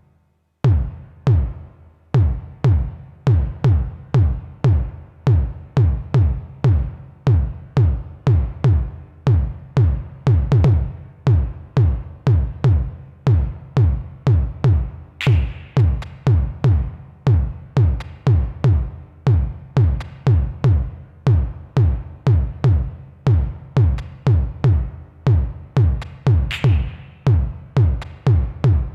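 Modbap Osiris wavetable oscillator in a modular synth patch, played as a sequence of short percussive bass notes about two a second, each with a quick downward pitch drop like an electronic kick. The line briefly cuts out right at the start, and a couple of noisier, brighter hits come in partway through.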